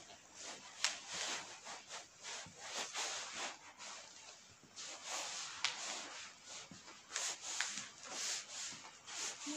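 Clear plastic stretch wrap on upholstered furniture crinkling and rustling as it is rubbed and brushed, in irregular scrapes, with a sharp tick about a second in.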